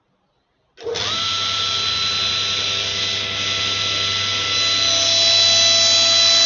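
Table saw switched on about a second in, its motor and blade spinning up to speed within a fraction of a second and then running with a steady whine. The sound grows slightly louder with added high-pitched tones about two-thirds of the way through.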